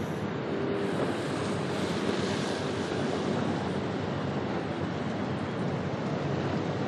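Steady rushing of wind and waves, with wind buffeting the microphone, and a faint hum for about a second near the start.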